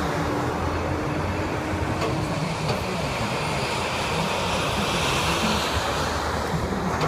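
Steady highway traffic noise: cars and trucks passing with a continuous low engine drone and tyre rumble.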